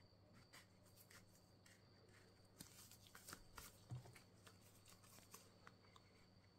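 Faint handling sounds of a plastic ID card and a leather card holder: light clicks and rustles as the card slides against the leather, busiest in the middle, with a soft thump about four seconds in. A low steady hum lies underneath.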